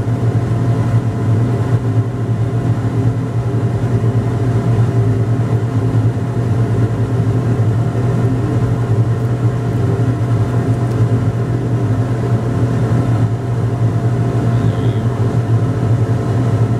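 A steady machine drone with a strong low hum and several steady tones over it, unchanging throughout, like an electric fan or blower running.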